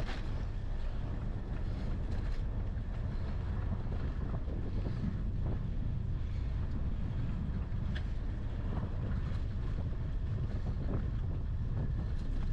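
Wind noise on the microphone of a camera on a moving bicycle: a steady low rumble, with a few light clicks.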